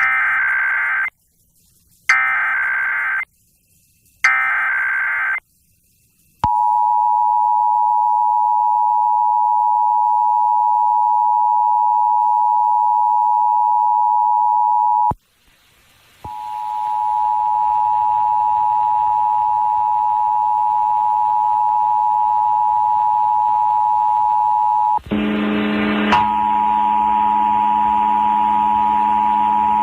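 Emergency Alert System test tones over FM radio. First come three screechy digital SAME header bursts of about a second each, then the steady two-tone attention signal (853 and 960 Hz). The tone breaks off briefly about 15 seconds in and resumes, and a lower drone joins it about 25 seconds in.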